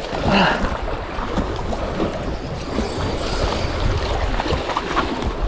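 Wind rushing over the microphone and sea waves washing against the rocks, a steady noisy rush, with a brief louder gust about half a second in.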